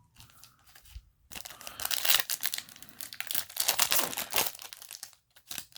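Foil wrapper of a trading-card booster pack crinkling and tearing as it is opened: a quiet start, then a dense run of crackles from about a second and a half in that eases off near the end.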